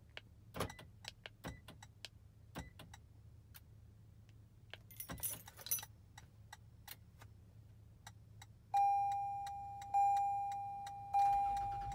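Key fob buttons clicking and the key ring jangling as the lock button is pressed three times to trigger a Start-X remote starter on a 2020 Toyota 4Runner. Near the end the instrument cluster chimes three times, each a single ringing tone that fades, as the remote start switches the ignition on.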